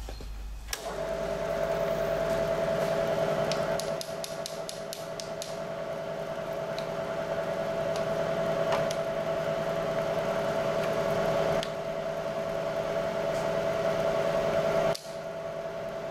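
The 2 hp variable-speed head of a Bridgeport Series II Special milling machine switches on about a second in, and its motor and spindle run with a steady hum. A quick run of clicks comes about four seconds in, and the sound dips sharply for a moment near the end.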